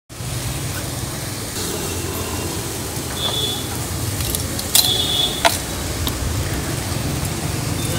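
Electric well pump running steadily with a low hum while its discharge pipe pours a heavy stream of muddy water into an open pit, splashing. Two short sharp clicks come about five seconds in.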